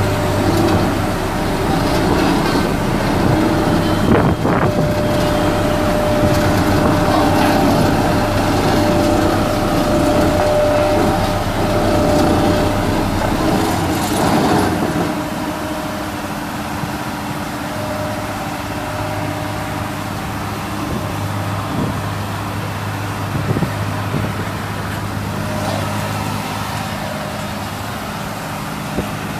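Road roller's diesel engine running steadily. About halfway through it eases to a slightly lower, quieter running note.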